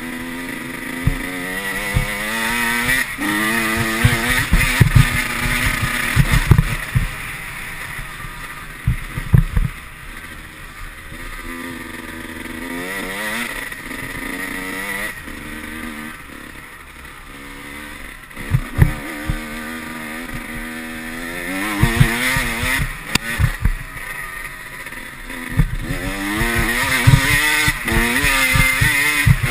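Dirt bike engine revving up and falling back again and again as it is ridden hard, with knocks from the bike hitting bumps in the track.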